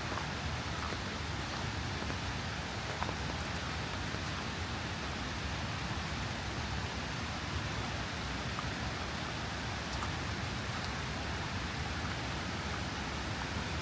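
Steady rain falling, an even rushing hiss with a few single drops ticking here and there.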